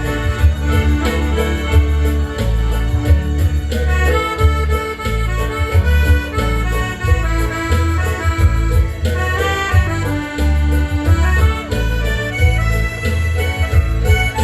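Instrumental break of a folk song: an accordion plays the melody over a steady bass beat, with no singing.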